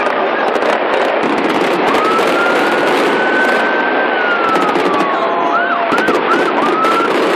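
Fireworks crackling and popping densely and loudly, with a siren wailing through it that slowly rises and falls, then swoops rapidly up and down near the end.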